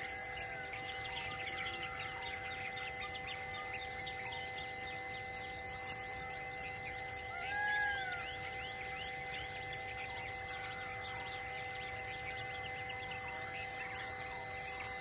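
Forest ambience of insects and birds: a pulsing insect chorus and repeated high chirps over steady droning tones. A single arching call comes about eight seconds in, and a few louder high calls follow a couple of seconds later.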